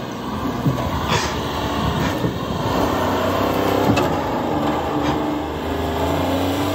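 Small engine of a Japanese kei mini truck running under load as the truck drives up a dirt trail, its pitch rising gradually. A few brief knocks are heard.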